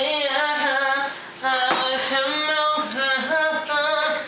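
A woman's voice singing a melody in phrases of held, bending notes, with a short break about a second in.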